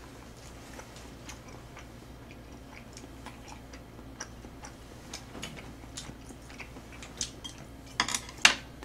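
Quiet chewing of tteokbokki with scattered light clicks and taps of chopsticks against a metal pan and a bowl. Two louder short noisy sounds come near the end.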